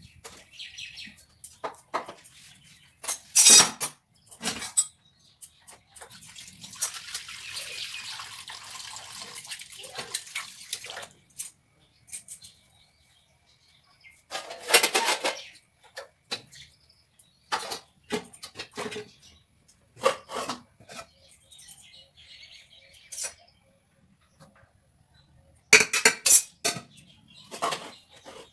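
Kitchen pots, dishes and utensils being handled: scattered clatters and knocks, the loudest about three seconds in, near the middle and near the end. A steady hiss lasts about four seconds, starting about six seconds in.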